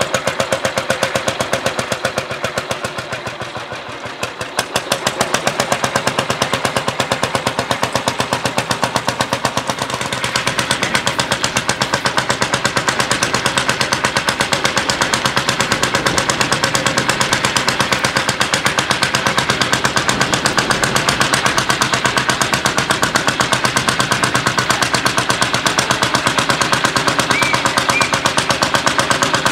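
Lanz Bulldog tractor's single-cylinder hot-bulb two-stroke engine running with a rapid, even beat of firing strokes while pulling a plough. The beat drops in loudness a few seconds in, then comes back and steadies, louder, from about ten seconds in.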